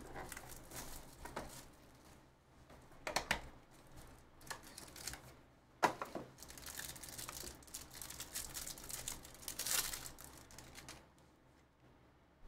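Foil wrapper of a football trading-card pack crinkling and tearing as it is opened by hand, followed by a few seconds of rustling as the cards are handled.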